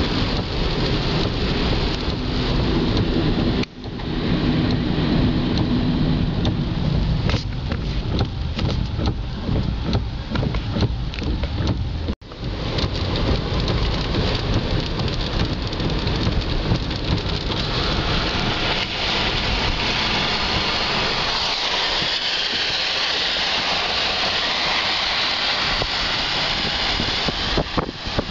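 Rain on a car's windshield and roof, mixed with tyre hiss and road rumble on a wet street, heard from inside the moving car. The sound drops out briefly twice, a few seconds in and about twelve seconds in.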